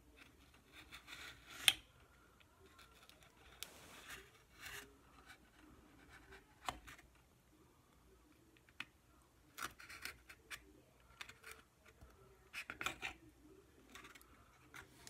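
Hobby knife blade scratching and cutting through dried gel transfer on a small wooden sign. The sound is faint, a series of short scratches with pauses between, with one sharper tick about two seconds in.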